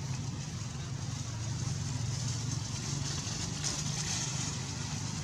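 Steady low rumble with a hiss over it, outdoor background noise of the kind a vehicle tagger files as traffic, with no distinct events.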